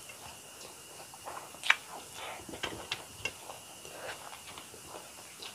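Close-miked chewing of a mouthful of rice, eaten by hand, with soft ticks and clicks as fingers gather rice on a steel plate. A sharp click stands out about a second and a half in.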